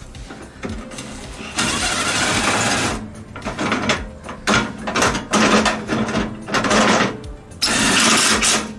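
Cordless impact driver running a bolt down into a steel go-kart frame in several bursts, the longest about a second and the loudest near the end.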